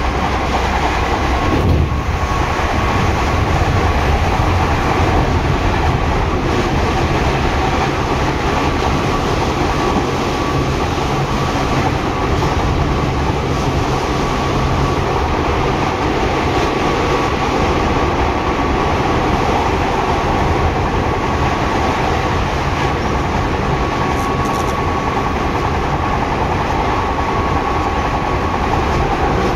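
Seibu 6000 series electric train running at speed, heard from inside the car: a steady rumble of wheels on rail with a steady whine through it, and a single thump about two seconds in.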